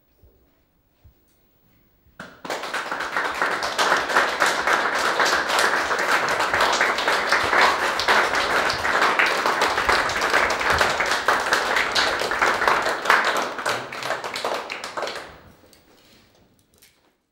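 Audience applauding: clapping breaks out about two seconds in, holds steady, and fades away near the end.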